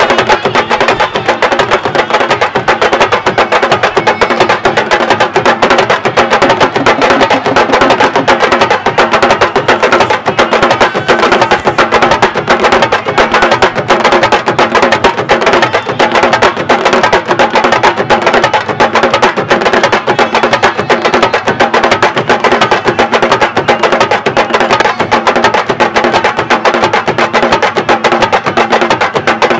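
Sabar drum ensemble playing a fast, dense, unbroken rhythm, the drums struck with sticks.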